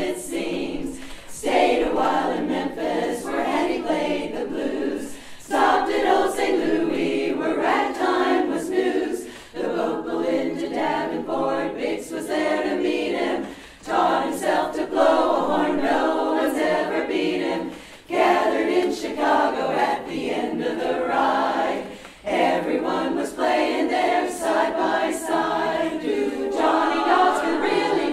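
Women's barbershop chorus singing a cappella in four-part harmony, in phrases of about four seconds with short breaks between them.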